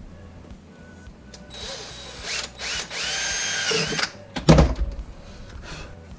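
Cordless drill running for about two and a half seconds as it bores through PVC pipe, its whine rising in pitch, followed by a single loud knock.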